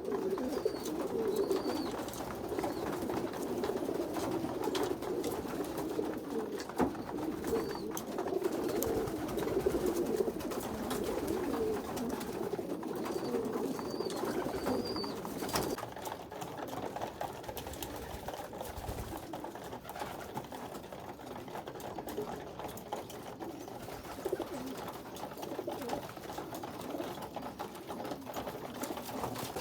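Racing pigeons cooing continuously, with a few faint high chirps and occasional sharp clicks.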